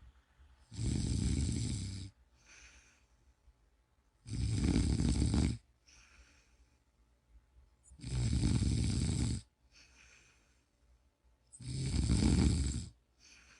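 Steady snoring: four loud snores, each lasting over a second, coming about every three and a half to four seconds, with a much fainter breath between them.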